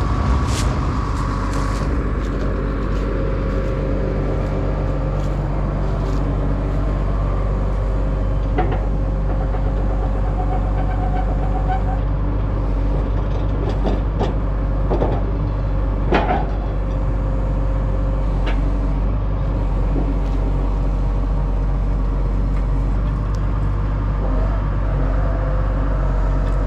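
Tractor engine running steadily, with a few short metallic knocks around the middle.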